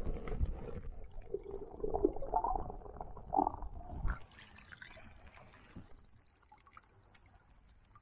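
Muffled underwater gurgling and sloshing heard by a camera held under river water, as a gloved hand digs into the riverbed; it cuts off sharply about four seconds in.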